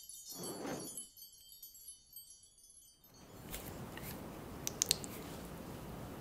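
A short chiming jingle with a brief whoosh at its start. It cuts off about three seconds in, and close-miked eating sounds follow: wet mouth clicks and chewing.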